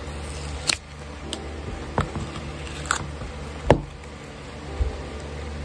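A SIM card starter pack being opened and handled: paper box and plastic card holder giving about five sharp clicks and taps, the loudest a little past the middle, over a low steady hum.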